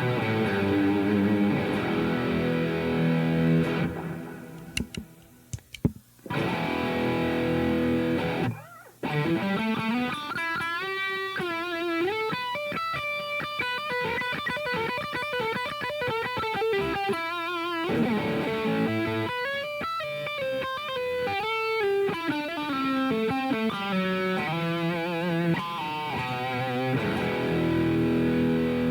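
Electric guitar played through a Revv G3 preamp/distortion pedal with the gain up: ringing chords, two brief stops, then single-note runs and lead lines with bends.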